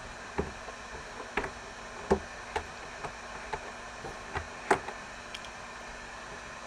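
A string of irregular light taps, about a dozen in five seconds, stopping about five and a half seconds in, over a steady background hiss.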